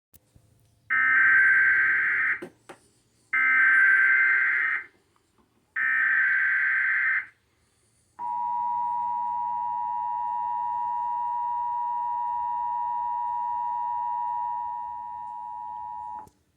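Emergency Alert System broadcast tones played over a cable TV channel. Three data-header bursts of about a second and a half each come first, a harsh warbling screech. Then the steady two-tone EAS attention signal sounds for about eight seconds and cuts off suddenly; it heralds a severe thunderstorm warning.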